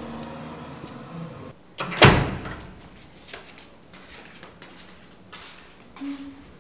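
A low car-interior hum fades out, then a door shuts with a single loud bang about two seconds in, followed by faint scattered taps.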